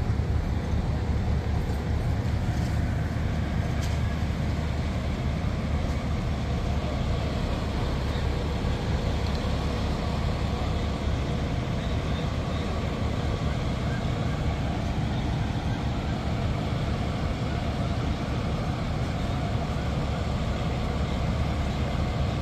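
Parked fire trucks and an ambulance with their engines idling: a steady low rumble and hum that does not change.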